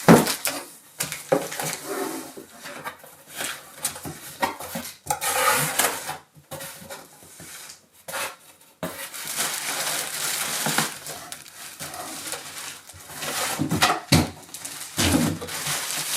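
Packaging being handled and opened by hand: irregular rustling and crinkling with scattered knocks and clacks.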